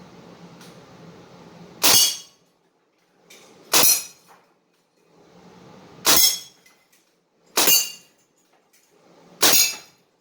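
Crosman CO2 BB rifle firing five single shots, spaced about two seconds apart, with a faint steady hiss in between.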